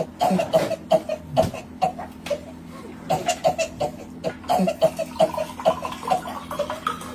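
A person laughing hard in rapid, high-pitched bursts of about three or four a second, broken by a cough.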